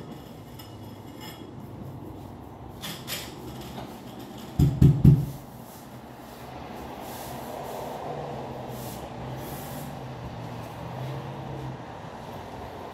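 Three dull thumps in quick succession about five seconds in, from hexagon ceramic floor tiles being set by hand on the tiled floor, with a few light clicks just before. A low steady hum comes in a couple of seconds later and runs for several seconds.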